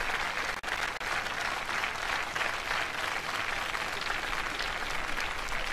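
Audience applauding steadily: a dense crackle of many hands clapping.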